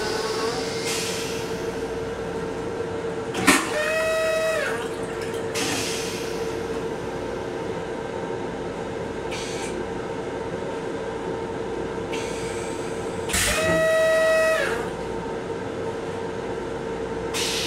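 Train restroom toilet running its flush cycle over a steady hum: a sharp clack about three and a half seconds in, then a brief whine that drops in pitch as it stops, and a second whine about ten seconds later.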